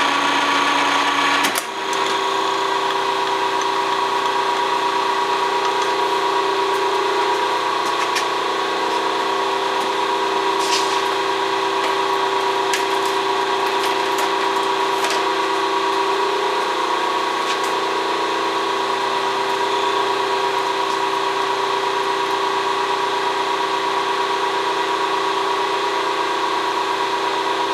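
A South Bend lathe's drive runs with a steady mechanical hum made of several tones. About a second and a half in, the sound dips briefly and settles onto a different pitch. A few faint clicks follow later.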